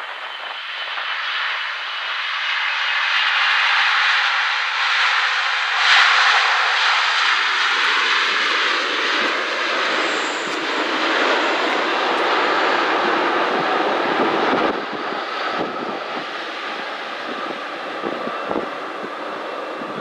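Boeing 777-300ER's GE90 turbofans in reverse thrust on the landing rollout: a loud jet roar that builds over the first few seconds, with an engine tone falling in pitch, then drops noticeably about fifteen seconds in.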